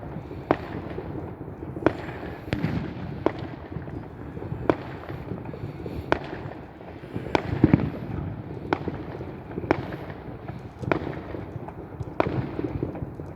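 Fireworks going off: about a dozen sharp bangs and cracks at irregular intervals, roughly one a second, over a steady low rumble.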